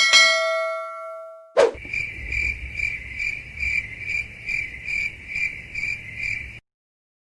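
A bell-like ding rings and fades for about a second and a half and is cut off by a click. Then crickets chirp steadily, a little over twice a second, for about five seconds: the stock 'awkward silence' cricket effect.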